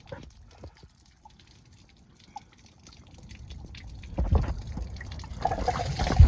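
Radiator water draining from under a 1997 Dodge Ram 2500, dripping and splashing over the frame and oil filter onto the ground; the pour grows louder from about three seconds in. A few low knocks come near the end.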